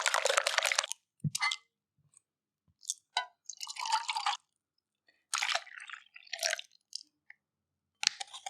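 Kitchen handling sounds from making flan: a run of scraping or stirring noise that stops about a second in, then scattered clicks and short wet, squishy bursts of liquid.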